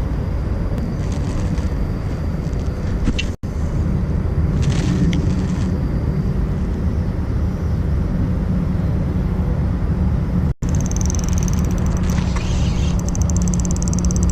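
Steady low outdoor rumble with no speech, broken twice by brief dropouts about three and ten seconds in.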